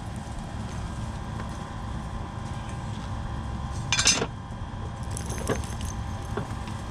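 Loose metal hardware clinking as it is handled: one sharp jangle about four seconds in, then a few lighter clicks, over a steady low rumble.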